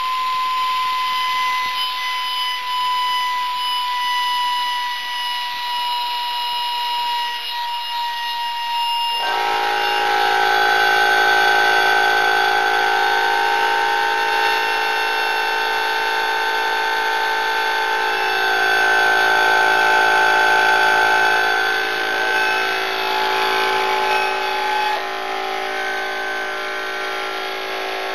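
Central Pneumatic 21-gallon air compressor running: a steady whine that slowly sinks in pitch, then about nine seconds in the sound changes abruptly to a louder, fuller hum that carries on steadily.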